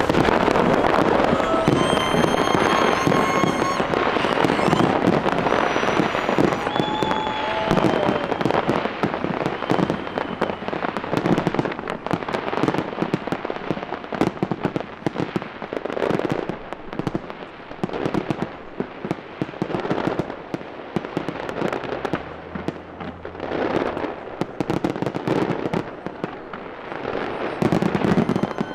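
Fireworks display: many shells bursting and crackling in quick succession, densest for the first half and thinning out later, with a last flurry of bursts near the end. Short high whistles sound over the crackle in the first several seconds.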